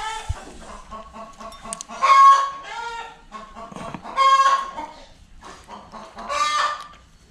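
A bird calling loudly three times, about two seconds apart, each call short and pitched.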